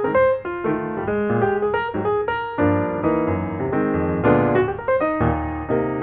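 Piano music: a melody of struck notes over chords.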